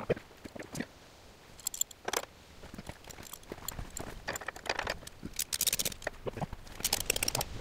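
Metal hooks and ratchet buckles on heavy-duty ratchet straps clinking and rattling in short bursts of rapid clicks as the straps are handled and hooked onto the front of the car.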